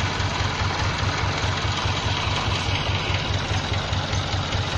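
Farm tractor's diesel engine idling, an even low throb.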